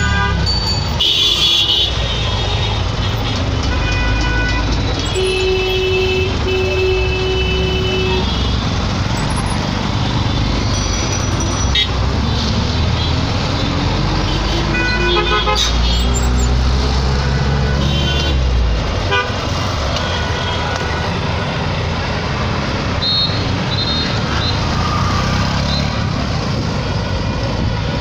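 Busy city street traffic: engines running and repeated honking, including one long horn blast of about three seconds, several shorter honks and a few quick high beeps.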